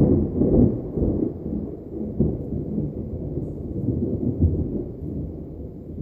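Thunder rolling, loudest at the start and slowly dying away over several seconds.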